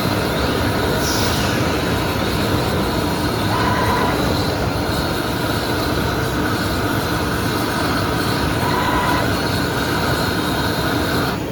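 CNC metal spinning machine running: a loud, steady mechanical noise with high whining tones held over it, and a brief falling whistle about a second in.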